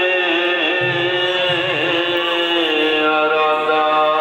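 Background music: a chant-like singing voice holds long notes that slide slowly in pitch.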